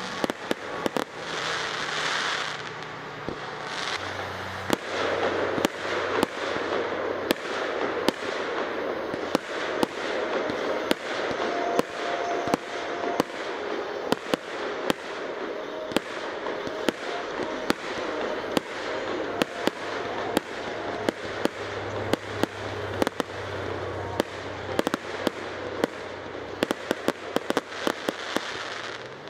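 Aerial fireworks display: a continuous crackle of bursting shells with many sharp bangs, coming thicker and faster near the end.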